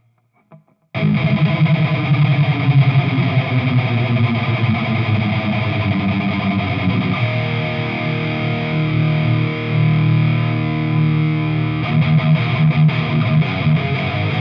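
2015 Chapman ML3 electric guitar with a newly fitted Seymour Duncan Quarter Pound bridge pickup, played through a distorted crunch tone. It comes in about a second in with a chord riff, lets chords ring out in the middle, and switches to choppier rhythmic picking near the end.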